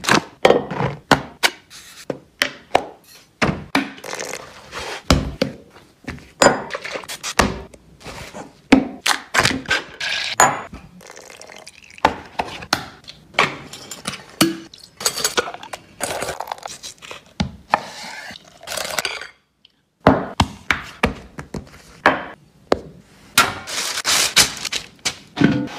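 A quick, irregular succession of close-up kitchen sounds: the paper bag of caster sugar rustling as it is opened, then many sharp knocks, thunks and clinks of bowls and utensils. There is a short silence about twenty seconds in.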